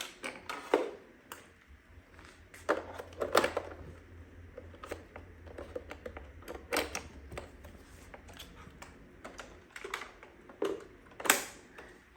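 Irregular plastic clicks, knocks and rattles as the main roller brush of a Dreame X40 Ultra robot vacuum is taken out and an anti-tangle cutting brush is fitted in its place. The loudest click comes near the end.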